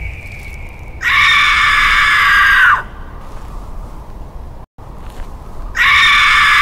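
Background pop song with a high voice holding two long notes, the first about a second in and the second near the end, each ending in a downward slide, with quieter backing between them.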